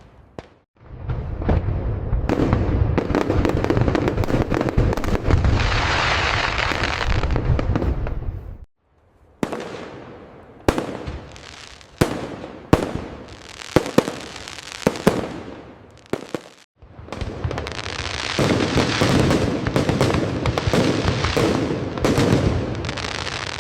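Fireworks display: a dense barrage of booms and crackling bursts, then a stretch of separate sharp bangs a second or so apart, then another dense barrage. The sound cuts out abruptly for a moment twice in between.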